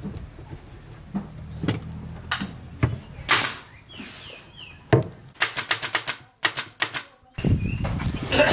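Pneumatic nail gun firing nails into a particleboard subwoofer box: a few single sharp shots, then a quick run of about eight. Near the end, a low scraping and knocking as the box is turned over on the bench.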